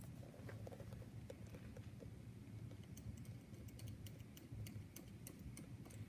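Faint light clicks and ticks of a metal outside caliper being fitted and adjusted against a leather shoe's heel and sole, coming thicker and faster in the second half, over a low steady hum.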